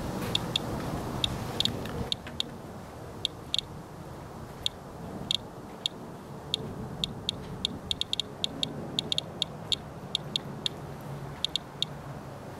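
Radalert Inspector Geiger counter's audio clicking: short, sharp clicks at random intervals, several a second, each one a detected radiation count. The display reads about 0.12 mR/hr, well above normal background.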